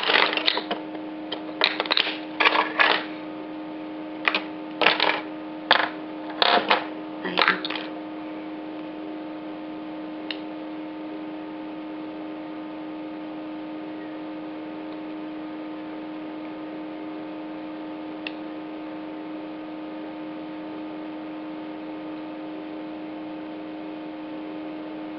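About a dozen short clicks and clatters of small hard objects being handled in the first eight seconds, the sound of plastic makeup cases being opened and set down. A steady electrical hum with several fixed tones runs underneath and carries on alone for the rest, with a couple of faint ticks.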